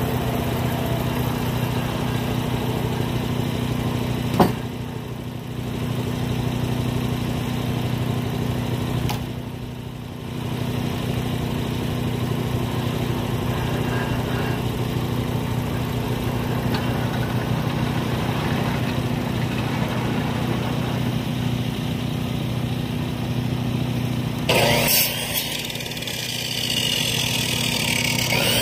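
Timbery M100 portable bandsaw mill running, its small gasoline engine holding a steady speed while the band blade saws along a log. There is a sharp knock about four seconds in, and near the end the sound turns abruptly brighter and hissier.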